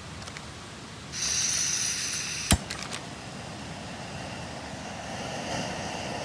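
Portable gas stove being lit: gas hisses from the opened valve, a single sharp igniter click comes about two and a half seconds in, then the burner flame runs steadily and grows a little louder.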